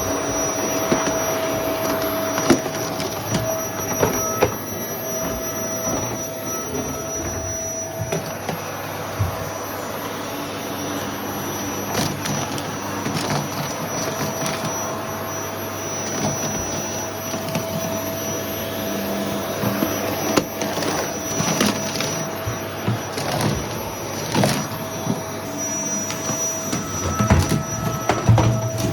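Household vacuum cleaner running with a steady whine and hiss, with scattered clicks and knocks throughout.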